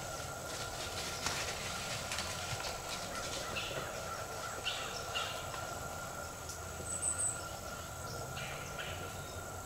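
Quiet pine-woods ambience with a few faint, short bird calls scattered through it over a faint steady high tone.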